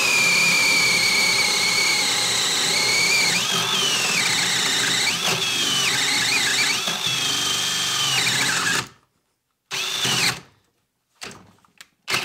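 HART brushless half-inch drill driver boring a 1-inch spade bit through a 2x4. Its motor whine wavers and sags under the load of the wood, then stops about nine seconds in. A few short bursts of the drill follow as the bit gets caught on splinters underneath at breakthrough.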